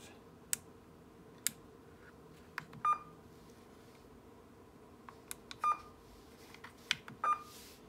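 Front-panel button clicks and short key beeps from an AnyTone 5888UV III mobile transceiver as its menu settings are changed: several sharp clicks, three of them followed by a brief high beep.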